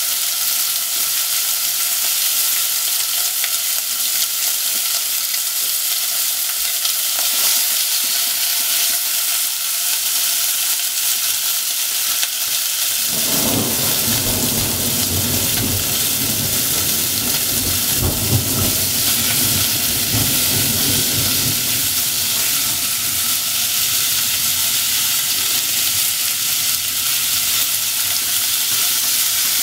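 Thin slices of pork sizzling steadily as they fry in a nonstick pot. A lower rumble joins in about halfway through, and near the end the meat is stirred with wooden chopsticks.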